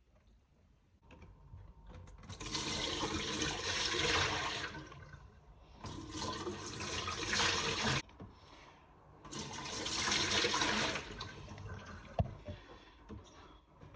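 Water caught from a dishwasher's wash cycle being poured out of a container in three pours of about two seconds each, the second one cutting off suddenly.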